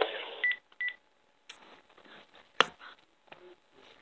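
Cordless phone handset giving two short beeps as the call is hung up, followed a couple of seconds later by a single sharp click.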